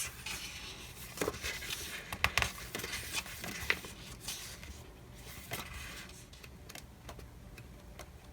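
Paper handling: sticker-book pages and sticker sheets rustling, with scattered light clicks and taps, busier in the first few seconds and thinning out later.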